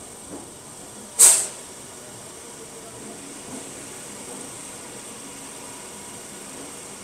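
A short, loud burst of compressed air hissing from the stopped MEMU train, about a second in.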